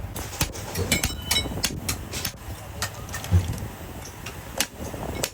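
Irregular sharp metal knocks and clanks, several a second, over a low machine rumble: workshop clatter.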